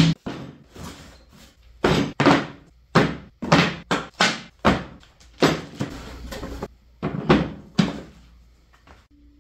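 Irregular knocks and thumps of welding cables, clamps and boxes being set down and moved about on a plywood workbench, about a dozen in all, stopping near the end.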